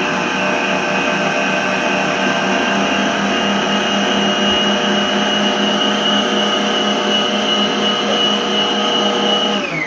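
Electric stand mixer with a wire balloon whisk running steadily on its lowest speed, a loud steady motor whine, as it beats milk into whipped eggs and sugar. Near the end it is switched off and the whine falls in pitch and winds down.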